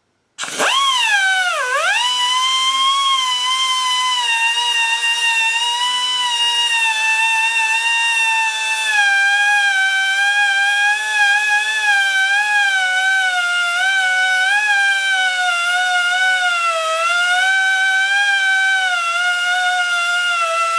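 Rotary cutoff tool with a Dremel-size cutoff wheel cutting the end off a short machine screw held in a square nut. It gives a high whine that starts about half a second in and dips sharply in pitch just after, then sags and wavers in pitch as the wheel is pressed into the cut.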